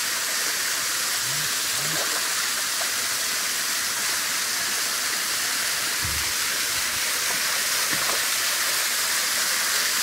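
Small waterfall spilling down a rock face: a steady, even rush of falling water.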